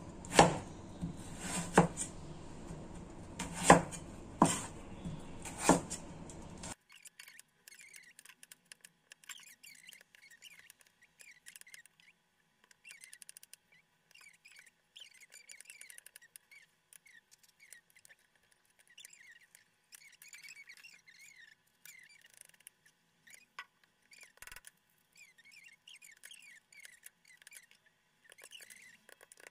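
A cleaver chopping through winter melon onto a bamboo cutting board: five sharp chops in the first six seconds. After that the sound drops abruptly to faint, high little squeaks and chirps.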